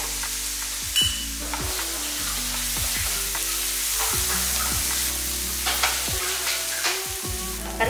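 Onion masala sizzling in oil in a nonstick frying pan as red chilli powder is stirred in with a spatula, the spices frying. A sharp tap about a second in, and a few scrapes of the spatula on the pan.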